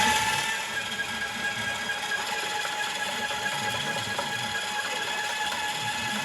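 Motorised drain-cleaning snake machine running with a steady mechanical whine as its cable turns in the pipe. A louder whine eases off within the first second.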